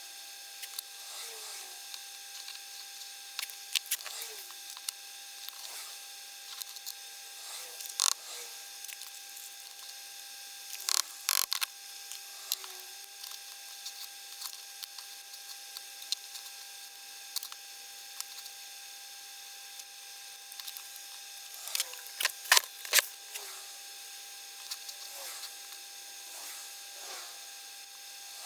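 Small metal parts of a watch bracelet clasp being worked by hand: light scraping strokes every second or so, with sharp metallic clicks, the loudest a cluster about 22 to 23 seconds in.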